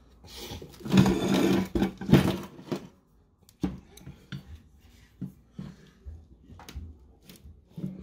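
Metal winch parts being handled on a workbench: a stretch of rustling and scraping about a second in, then a series of light knocks and clicks as pieces are picked up and set down.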